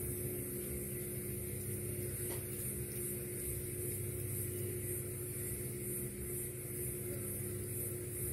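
Steady low hum with a few held tones under a constant high hiss, with a single faint tick about two seconds in.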